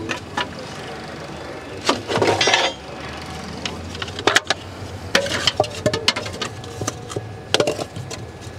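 Wooden kindling sticks being dropped into the firebox of a steam traction engine during lighting-up: irregular sharp knocks and clatters of wood on the grate and iron firehole, with a longer rattling clatter about two seconds in.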